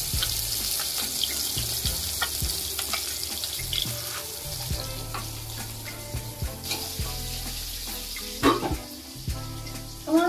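Oil sizzling as pieces of food fry in a kadai (wok), with a steel spatula clicking and scraping against the pan as they are turned.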